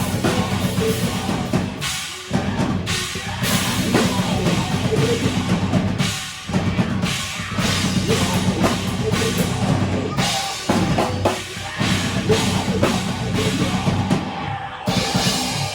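Rock band playing a heavy song: a drum kit pounding bass drum and snare under sustained guitar and bass, with a few short breaks in the playing.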